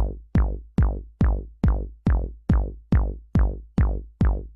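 Electronic music track: a deep bass-drum hit on every beat, about two and a half a second, each one falling in pitch.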